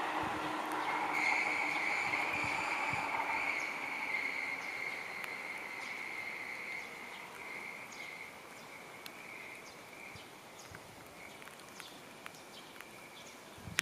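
Seibu 2000 series electric train running away around a curve, its running noise dying out within the first few seconds while a high, steady wheel squeal from the curve slowly fades.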